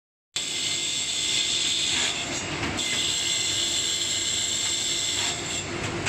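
Multi-blade circular saw running with a steady high whine over a lower machine hum. The whine drops away briefly twice, about two seconds and five and a half seconds in.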